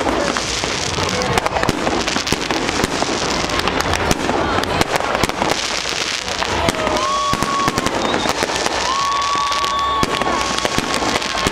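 Fireworks display: a dense, continuous run of bangs and crackling shells. Two long whistling tones sound over it, one from just before the middle and a second near the end.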